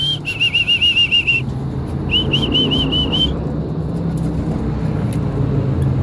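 Two quick runs of short, rising whistled notes, about eight and then six, evenly repeated at one high pitch, over a steady low rumble.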